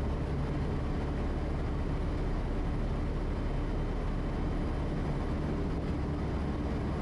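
Quest Kodiak's Pratt & Whitney PT6A turboprop engine and propeller at takeoff power during the takeoff roll: a steady drone with a low hum.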